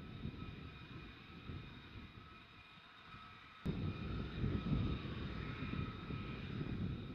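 F-35A Lightning II taxiing at low power, its single F135 jet engine giving a steady whine of several high tones over a low rumble. The sound steps up abruptly about three and a half seconds in.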